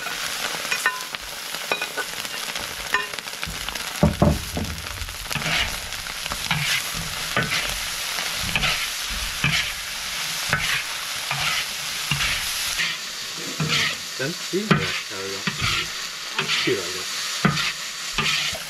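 Food sizzling and frying in a large steel wok-style pan, with a metal spatula scraping and stirring it in repeated strokes, about one a second. A couple of dull knocks come about four seconds in.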